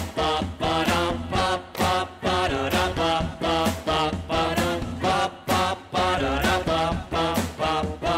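Live band music with a steady beat, keyboards and a male singing voice.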